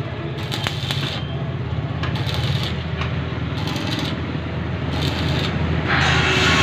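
Stick (arc) welding: the arc crackles in several short bursts, about half a second each, over a steady low hum. Near the end a louder steady rushing noise comes in.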